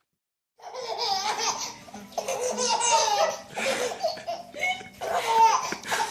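A baby laughing in repeated bursts, beginning about half a second in after a moment of silence.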